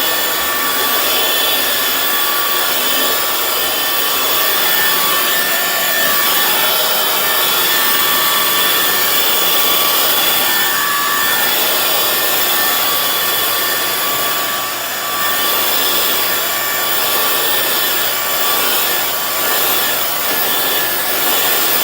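Hoover FloorMate Spin Scrub hard floor cleaner running: a steady motor drone with a faint whine over it, and its spinning brushes scrubbing across the hard floor.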